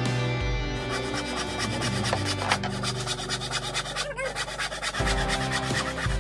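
Wooden strip being sanded by hand, sandpaper rasping back and forth along the wood in quick repeated strokes.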